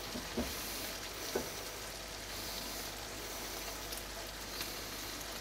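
Chicken pieces and pearl barley sizzling gently in olive oil in a frying pan, with a couple of soft knocks as tongs stir the pan near the start.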